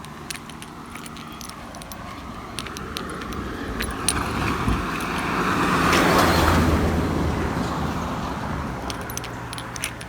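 A motor vehicle passing by: its sound builds to a peak about six seconds in, then fades away. Short sharp clicks are scattered through it.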